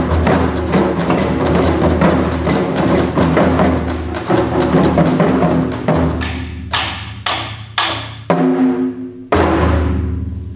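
Taiko drum music with a modern arrangement and no shouted calls: fast, dense drumming over a sustained low tone, with a sharp click recurring about twice a second. Past the middle it breaks into a run of single strikes about half a second apart, closing with one big hit near the end.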